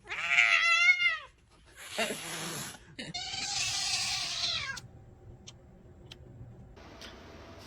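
A cat meowing: a long yowl with a wavering pitch in the first second, then two harsher, breathy cries about two and three seconds in.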